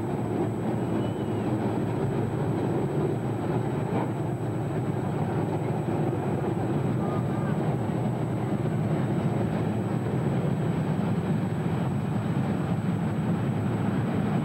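A field of dirt-track stock cars racing past, their V8 engines blending into one steady, unbroken drone.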